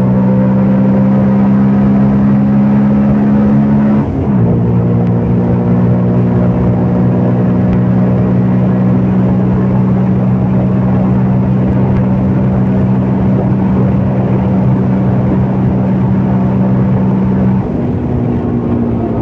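CFMOTO Papio 125's single-cylinder four-stroke engine running at steady revs while riding. About four seconds in the note cuts briefly and comes back lower, as on an upshift. Near the end the revs and level drop a little as the throttle eases.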